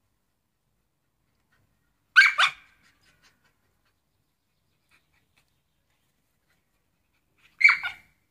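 Shiba Inu barking for a landing net held above it: a quick double bark about two seconds in and another short double bark near the end, both short and high.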